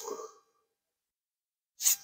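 A man's breath noises close to the microphone: a hissy breath fading out just after the start, then a quick intake of breath near the end, with dead silence between.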